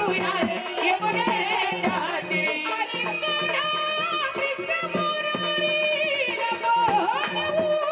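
Marathi gondhal folk music: a singer's ornamented, bending melody with long held notes over a steady low drone and regular drum strokes.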